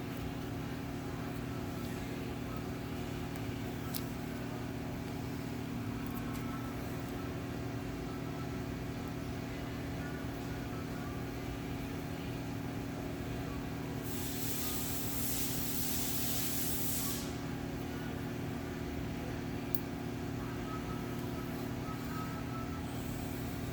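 Steady machine hum, with a hiss that starts about fourteen seconds in and lasts about three seconds.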